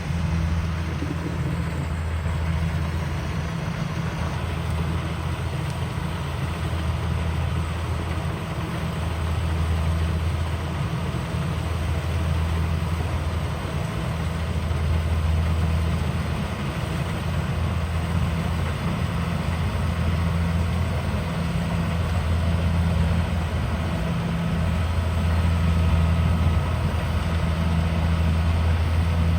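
Rice combine harvester engine running steadily, a low drone that swells and eases every few seconds.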